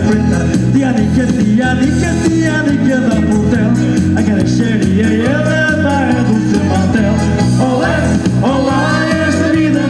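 Live band music: a steady rhythmic bass line under a gliding melody line, with no break.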